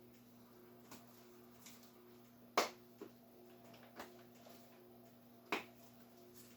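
A handful of light, sharp clicks and taps from a spice container being shaken and tapped as onion powder is sprinkled into a bowl, two of them louder, over a faint steady hum.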